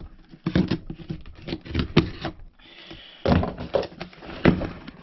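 Knife blade slicing the packing tape on a cardboard shipping box, heard as a run of short, irregular scrapes and knocks on the cardboard.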